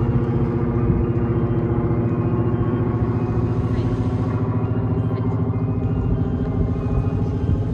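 An engine running steadily at an even pitch, with a fast, regular pulse.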